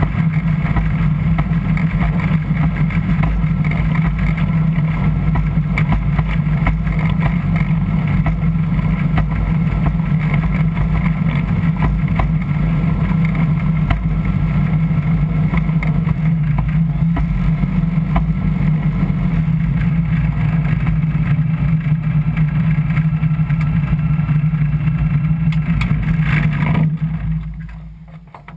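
Ultralight aircraft's piston engine and propeller running steadily, heard from inside the open-frame cockpit with a strong low hum. The engine note drops away sharply near the end.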